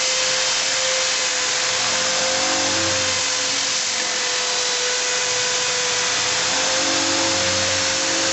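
Electric drill running at a steady speed with a 60-grit sanding pad pressed into a manzanita bowl turning on a lathe: a constant motor whine over the even hiss of abrasive on wood.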